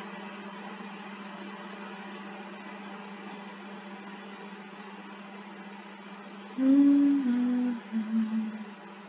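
A person humming a few low notes, each a little lower than the one before, starting about six and a half seconds in, over a steady low electrical hum.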